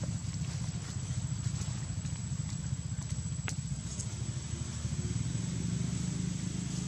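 A low, steady engine rumble, with a constant faint high-pitched whine and a single sharp click about three and a half seconds in.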